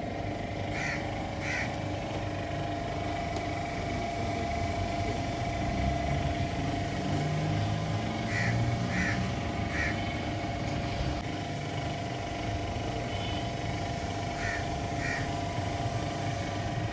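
Steady hum of a running engine nearby, with short high chirps in groups of two or three, a few seconds apart.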